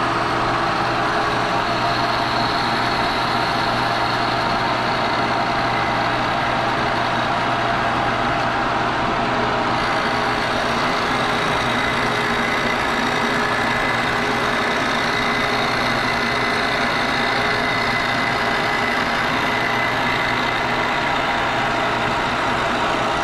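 Milling machine running a carbide face mill across cast iron, taking a light skim cut of about four thousandths: a steady machine sound with the continuous noise of the cut.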